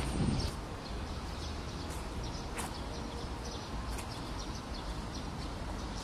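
Birds chirping in the trees, many short high calls, over a steady outdoor hiss and low rumble, with a few faint taps.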